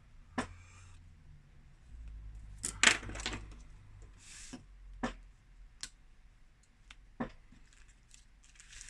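Small metal tools and phone parts clicking and tapping on a work surface, a handful of separate sharp clicks with a louder clatter about three seconds in, and two short soft rustles.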